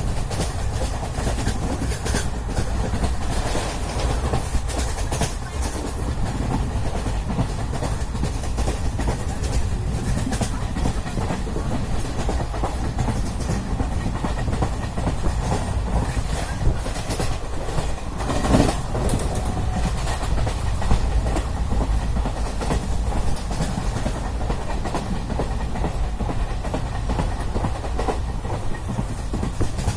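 Matsyagandha Express passenger train running along the track: a continuous rumble with the clickety-clack of wheels over rail joints. One louder knock comes about eighteen seconds in.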